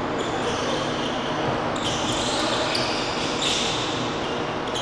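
Basketball game sounds in a gym: a ball bouncing and sneakers squeaking on the hardwood court, with the hall's echo.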